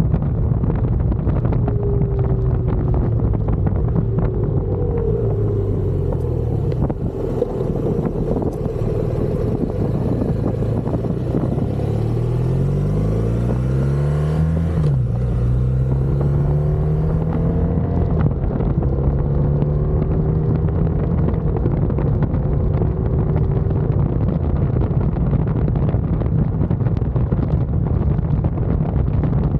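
Touring motorcycle engine running under way with wind rushing over the microphone. About twelve seconds in the engine pitch rises as it accelerates, drops sharply at a gear change, then holds steady at cruising speed.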